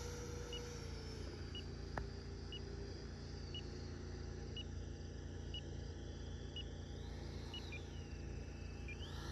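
Distant whine of an 80mm electric ducted fan jet in flight, its pitch sliding down early on and rising and falling again near the end, over a steady low rumble. A short high beep repeats about once a second.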